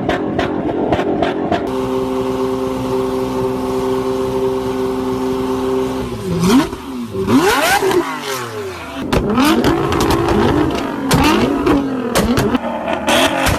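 Car engine revving: held at a steady high rev for a few seconds, then blipped repeatedly, its pitch falling and rising several times.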